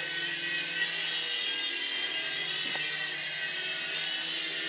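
Small remote-control toy helicopter flying, its electric motors and rotors giving a steady high-pitched whir.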